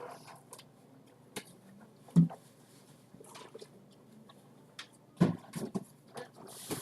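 Scattered light clicks and rustles, with two louder knocks about two seconds in and about five seconds in: small objects being handled and packed.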